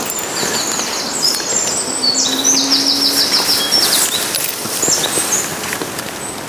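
A small songbird singing: rapid runs of high repeated notes that step from one pitch to another, lasting most of five seconds, over a steady outdoor hiss.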